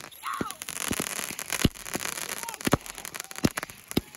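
Consumer fireworks going off. A hissing, crackling spray runs for the first couple of seconds, with several sharp bangs about a second apart.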